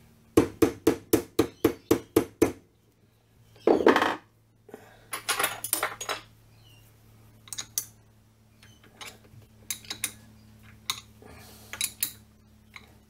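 Plastic-faced hammer tapping a mini lathe's three-jaw chuck about eight times in quick succession, seating it on the spindle flange. A louder knock follows, then scattered light metallic clinks of a key working on the chuck.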